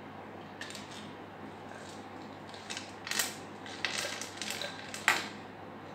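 Small objects being handled on a desk: a scatter of light clicks and scrapes, the sharpest about three and five seconds in.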